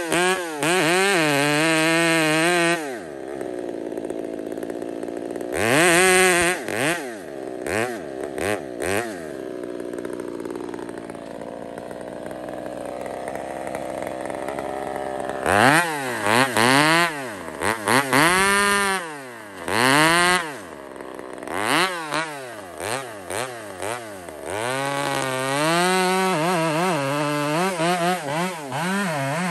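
Husqvarna 372XP two-stroke chainsaw cutting into a large tree trunk at full throttle. About three seconds in it drops back to a low idle for roughly twelve seconds. It then revs up and down repeatedly before settling into a steady full-throttle cut near the end.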